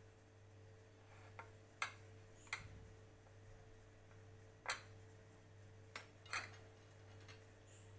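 A steel spoon clicking sharply against a dish six times at uneven intervals while bread crumbs are spooned and pressed onto a cutlet, over a faint steady hum.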